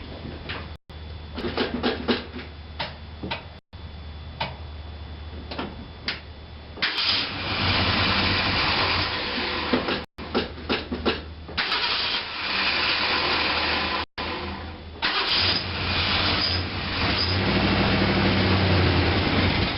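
1966 Mercury Park Lane's 390 V8 cold-starting without choke: for about seven seconds it cranks and coughs unevenly, then it catches and runs grumpy and uneven, with an exhaust leak, climbing in revs near the end.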